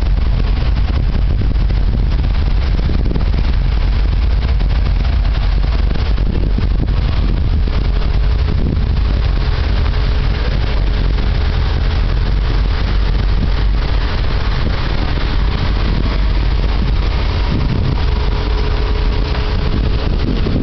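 Older Opel cars' engines running at low speed as the cars drive slowly past in a line, a steady low rumble.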